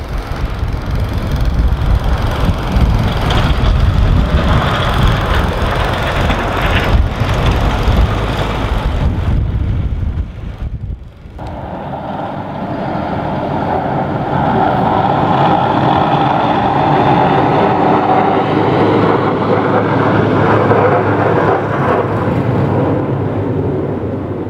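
A Fendt 820 Vario tractor's diesel engine runs under load as it pushes snow with its front folding plough. About eleven seconds in, that sound gives way to a Volvo FH 520 8x4 plow truck plowing, its diesel growing louder as it nears and holding steady before easing off near the end.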